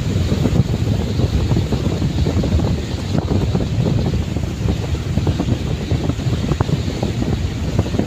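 Wind buffeting the microphone in a steady low rumble over the wash of sea waves breaking around rocks.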